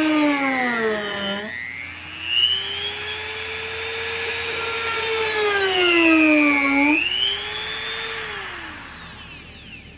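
HARDELL corded variable-speed rotary tool running on a piece of wood: a high motor whine that dips sharply in pitch twice, about a second and a half in and again about seven seconds in, recovering each time. Near the end it falls in pitch and fades as the tool spins down.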